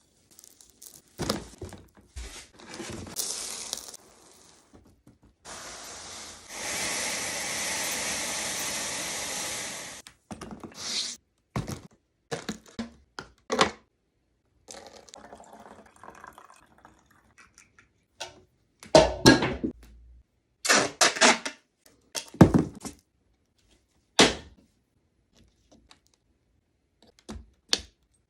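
Handling noises at close range: scattered knocks and taps, a steady rush like pouring or running water for about four seconds, and later a few loud clattering clicks.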